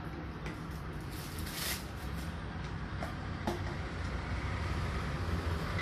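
Plastic packaging rustling and a few sharp clicks as a car phone holder is unwrapped and handled, over a steady low background rumble.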